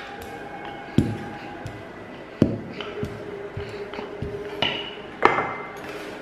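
Wooden rolling pin knocking on a countertop while dough is rolled out: four sharp knocks spaced about a second or two apart, over soft background music.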